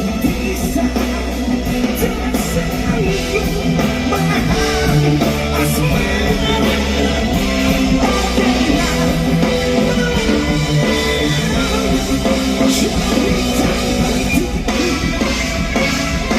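Live rock band playing: guitar with bass and drum kit, loud and steady, in a passage without transcribed vocals.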